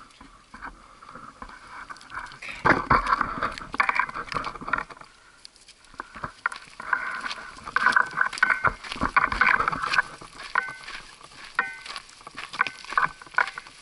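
Footsteps crunching irregularly on a loose, rocky dirt trail as a hiker walks behind a guide dog. A few short, high chirps are heard about two-thirds of the way through.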